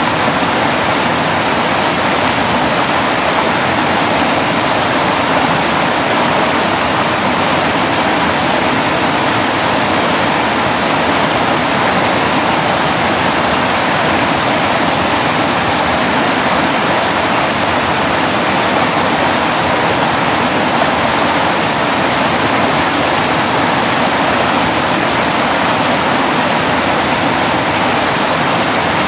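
Steady, loud rushing of a mountain creek's whitewater rapids tumbling over boulders.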